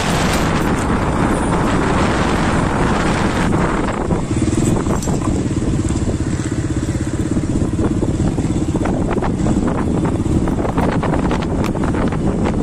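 Road vehicles passing, a steady engine and tyre rumble with no horn melody standing out.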